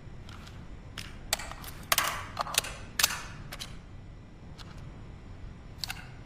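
SIG Sauer MCX Virtus rifle fired through a Midwest Industries suppressor. It gives sharp, muffled reports with a short trailing echo, the two loudest about a second apart in the middle, among lighter clicks.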